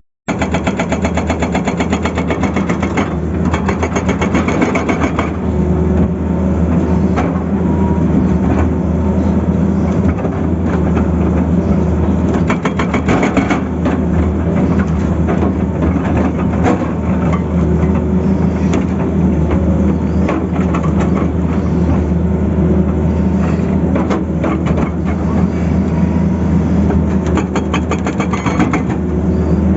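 Tata Hitachi excavator's diesel engine running under load, with spells of rapid hammering from a hydraulic breaker near the start, about halfway through and near the end.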